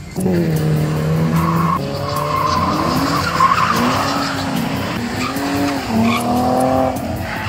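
Drift car engine revving up and down hard while its tyres squeal and skid, starting suddenly just after the start.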